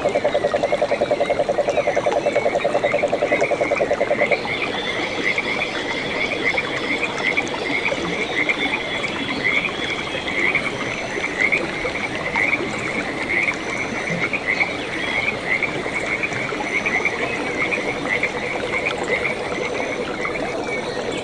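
A chorus of frogs calling. For about the first four seconds a fast, low trill dominates, then stops abruptly. Many short, higher chirping calls repeat throughout.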